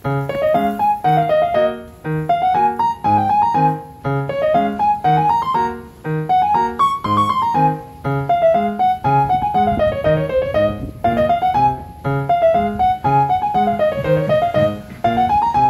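Background piano music: a melody of quick running notes that rises and falls over a steady bass.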